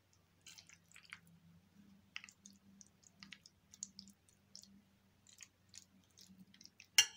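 Faint scattered small clicks and crackles over a low steady hum, with one sharp click near the end.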